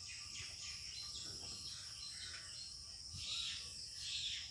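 Faint, steady high-pitched chirring of insects in the background, briefly louder twice in the second half.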